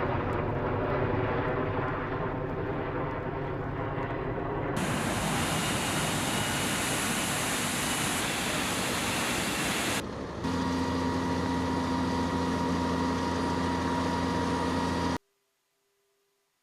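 Military helicopter turbine and rotor noise, loud and steady, in three spliced segments: a wide hiss takes over about five seconds in and steady tones return about ten seconds in. It cuts off suddenly near the end.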